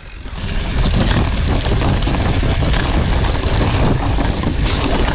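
Riding noise of a Cube Stereo 150 full-suspension mountain bike moving quickly along a dirt forest trail: wind buffeting the camera microphone over a steady tyre rumble, with small knocks and rattles from the bike. It swells about half a second in and then stays loud and even.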